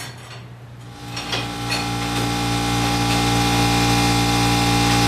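A machine's motor starts up about a second in, rising in level over the next couple of seconds, then runs with a steady, even hum. A few light clicks come as it starts.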